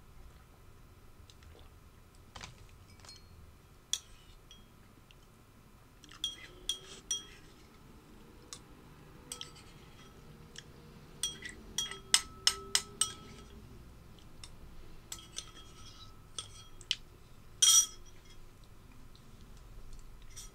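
Clinks and taps of dishes being handled: scattered sharp clicks, a quick run of about six in the middle, and one louder clatter near the end.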